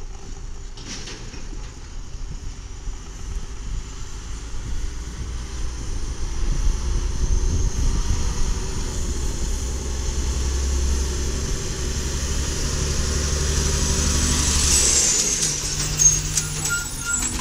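1996 Volvo garbage truck running on liquefied natural gas, approaching and pulling alongside: its engine drone grows louder as it nears, with a high whine that is loudest as it comes level near the end. The truck is one that, according to its filmer, is not running well and screams a little.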